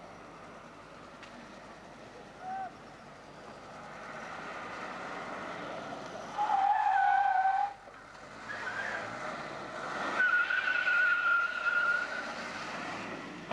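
Tyres of a Mercedes-Benz W123 squealing as it is driven hard through tight turns, over the sound of its engine: a short squeak early, then a loud squeal of about a second some six and a half seconds in, and a longer, higher-pitched squeal from about ten seconds.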